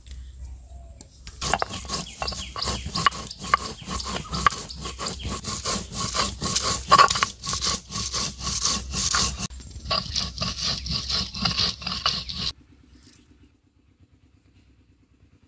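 Stone roller of a sil-batta rubbed back and forth over a flat grinding stone, crushing herbs and spices into a wet green paste: quick, rhythmic scraping strokes that begin about a second and a half in and stop near the end.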